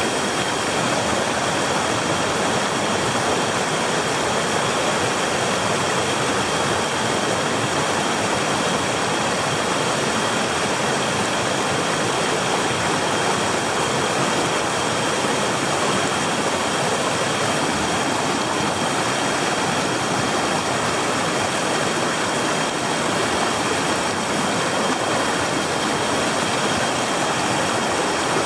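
Rushing mountain stream: a steady, even water noise that does not change.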